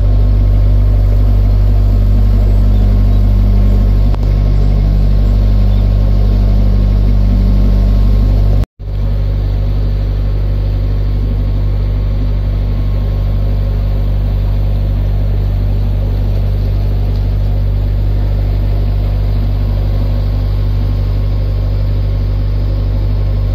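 Narrowboat's inboard diesel engine running steadily at cruising speed. The sound drops out for a moment about a third of the way through and then runs on a little quieter.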